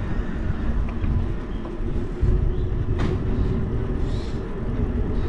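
Wind rumbling on the microphone and road noise while riding a bicycle along a highway, with a faint steady engine hum from traffic ahead. There is a single sharp click about three seconds in.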